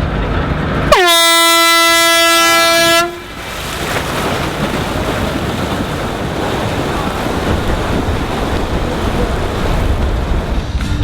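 One air horn blast of about two seconds, a single pitch that dips slightly as it sounds. It is the kind of horn that signals the start of a triathlon race. A steady rush of noise follows.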